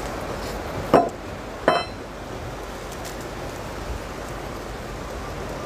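Two short strokes of a wooden hand plane on the edge of a hull plank, one about a second in and one just under a second later, the second with a slight ring, over a steady background hiss.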